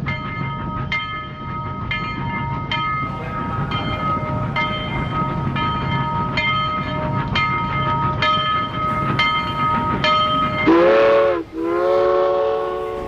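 Train sound effect: a bell striking about twice a second over a steady low train rumble. Near the end a loud train horn sounds twice, the first blast dipping and breaking off and the second held and fading away.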